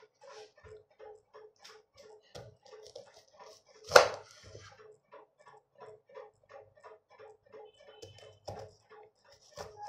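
Chef's knife cutting through an onion on a wooden cutting board, with one sharp knock of the blade hitting the board about four seconds in. Under it runs a steady ticking beat of about four ticks a second.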